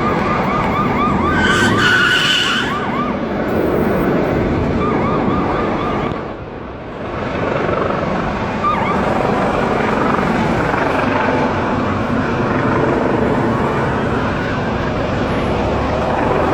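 Emergency-vehicle siren yelping in quick rising-and-falling cycles over dense city traffic noise, most clearly in the first few seconds.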